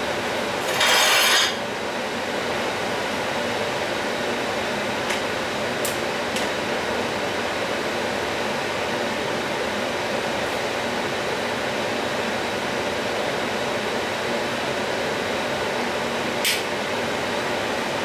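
Steady whir of a workshop fan moving air, with a few light metallic clicks as a stick-welding electrode holder is handled. A brief loud burst of noise comes about a second in.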